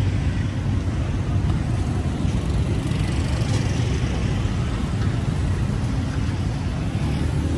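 Steady low rumble of motor traffic on a busy street, even throughout with no distinct pass-by or sharp sound.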